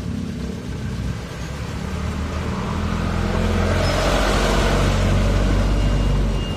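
A motor vehicle's engine rumble that swells from about three seconds in, is loudest around four to six seconds in, then cuts off abruptly near the end.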